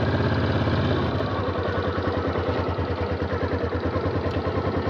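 Yamaha 250 cc single-cylinder motorcycle engine running at low revs with an even beat, easing off slightly about a second in.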